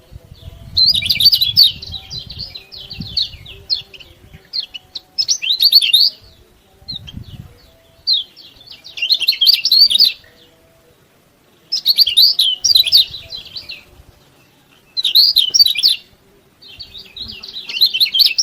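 Kecial kuning white-eye calling in rapid bursts of high, twittering chirps, about seven bouts of a second or two each with short pauses between.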